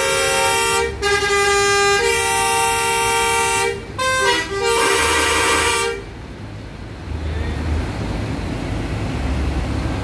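Intercity bus horns blaring at one another in long, steady blasts that shift between several notes, with short breaks about a second in and around four seconds in. The horns stop about six seconds in, leaving the rumble of bus engines and traffic.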